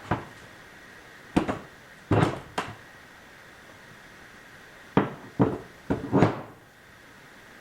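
A series of sharp knocks and clunks from parts being handled and set in place during assembly: a few in the first three seconds, then another quick cluster of four about five seconds in.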